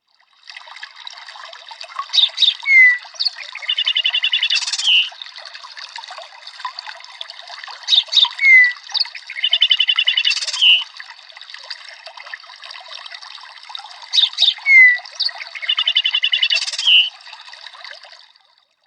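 OnePlus 12 nature ringtone: birdsong over the steady trickle of running water. A short phrase of sharp chirps, a falling whistle and a rapid trill repeats three times, about six seconds apart.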